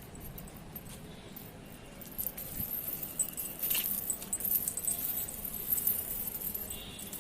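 Metal jingling and clinking: irregular, quick light clinks that start about two seconds in and keep going.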